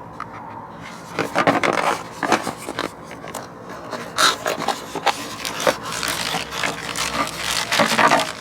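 Irregular rubbing and scraping noises, a run of short uneven strokes with no steady rhythm.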